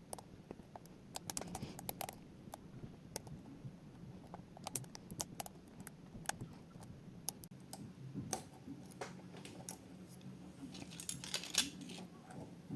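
Scattered light clicks and small metallic taps from lock picks being handled, with a short run of rustling and clicking about eleven seconds in.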